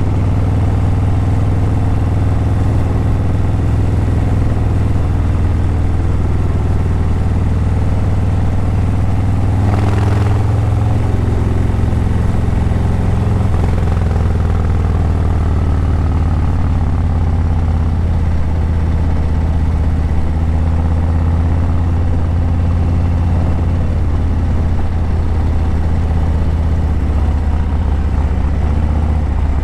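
Harley-Davidson Breakout 117's Milwaukee-Eight 117 V-twin running through Vance & Hines Eliminator 300 slip-on mufflers while riding, a steady low engine note. About ten seconds in there is a brief loud rush of noise, and the engine note then shifts in pitch.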